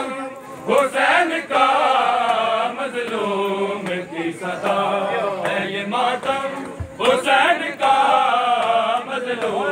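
A large group of men chanting a noha, a Muharram lament, together in unison. There is a short break just before about seven seconds in, after which the chant comes back loudly.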